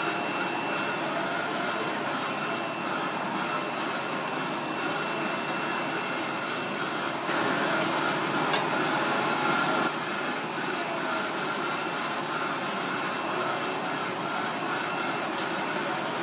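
Steady machine noise with a faint high whine. It gets louder for a couple of seconds about seven seconds in, with a sharp click in the middle of that stretch.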